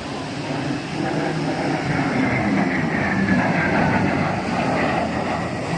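F-16 fighter jet flying by: a steady jet-engine rush, with a thin whine that slowly drops in pitch as it passes.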